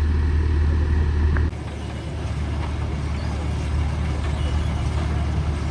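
Kubota 105X combine harvester running steadily under load, a deep engine hum with mechanical noise over it. The sound drops suddenly about a second and a half in, then runs on evenly.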